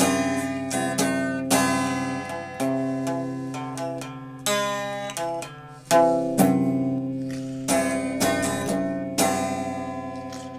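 Music on a plucked string instrument: unhurried single notes and chords, each plucked sharply and left to ring out and fade before the next.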